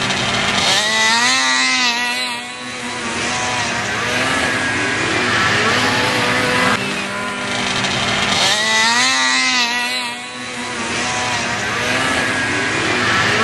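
Racing snowmobile engines running hard as a pair of sleds launches up the hill. Their pitch rises and wavers as they rev, once about a second in and again after a sudden change around the middle.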